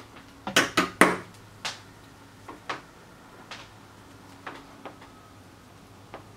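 Sharp clicks and knocks from hand-soldering work on a bench: three loud ones in quick succession about half a second in, then fainter single clicks about once a second.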